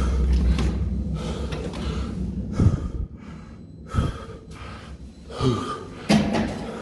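A man gasping for breath, out of breath from climbing about twenty flights of stairs, with repeated heavy breaths. A couple of sharp clicks from the stairwell door's handle and latch as it is pushed open.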